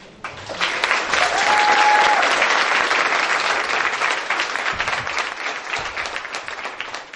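Audience applauding after a speech, swelling within the first second or two and dying away near the end.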